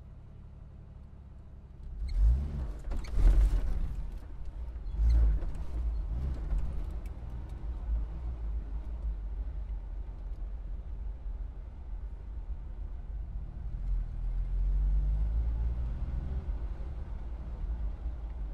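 Car engine idling low, then pulling away about two seconds in with loud surges and rising and falling engine pitch, peaking twice, before settling into a steadier run. A slow rise and fall in engine pitch comes later on.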